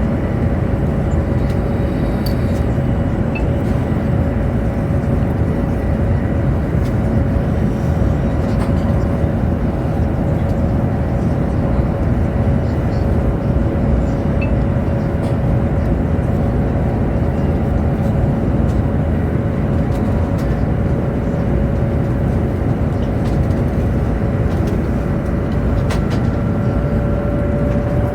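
Cabin noise inside a Chinese high-speed train running at speed: a steady low rumble with a constant hum tone over it, and a few faint ticks.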